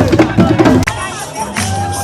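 Tambor de crioula music, hand drums and percussion with singing, cutting off abruptly about a second in to a quieter stretch with a long held note over crowd noise and scattered drum hits.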